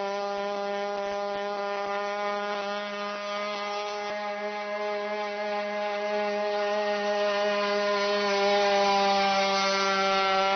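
Boston Dynamics WildCat quadruped robot's onboard engine running with a steady, unchanging buzzing drone. It grows a little louder near the end.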